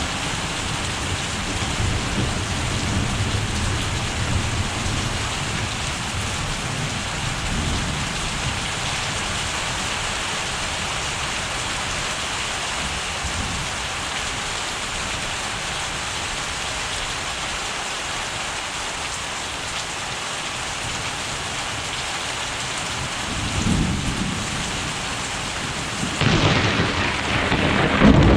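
Steady rain with rolling thunder: a low rumble through the first several seconds, another brief rumble later, and a sudden, louder peal of thunder near the end.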